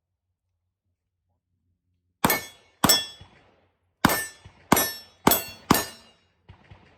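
Ruger Max-9 9mm pistol fired six times in an uneven string starting about two seconds in, each shot with a short metallic ring, followed by two faint ticks near the end.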